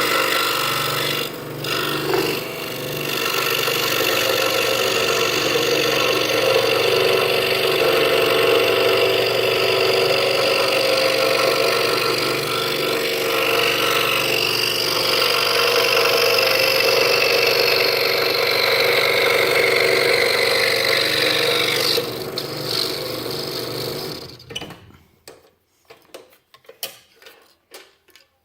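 Scroll saw running steadily, its blade cutting through half-inch pine. About 24 seconds in the saw stops, and a few light clicks follow.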